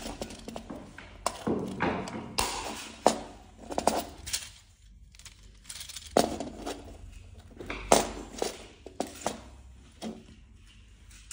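Plastic wall-socket modules and a clear plastic mounting frame being handled: irregular clicks and knocks of plastic against plastic and against a wooden tabletop.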